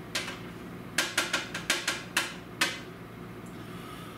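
A plastic spatula knocking against a nonstick frying pan while browned ground beef is scooped out: one sharp tap, then a quick run of about eight knocks about a second in.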